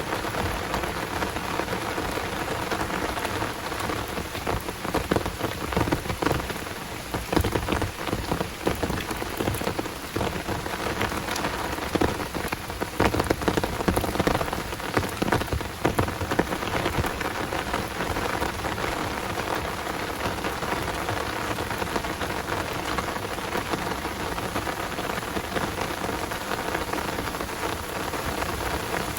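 Downpour rain falling steadily, with many close drops striking nearby; the close drop hits grow louder and denser for a stretch in the first half.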